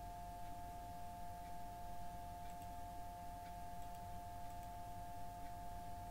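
Steady electrical whine made of two close high tones over a low background hum, with a few faint clicks from a computer mouse.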